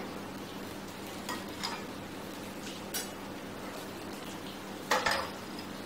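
Kitchen work at a pan of warm butter sauce: stirring and light utensil ticks over a steady faint hiss, with a louder clink of cookware about five seconds in.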